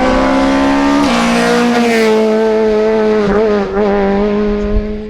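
Rally car engine running at high revs, its pitch held nearly steady, dropping once about a second in like an upshift and dipping briefly a couple of times near the end.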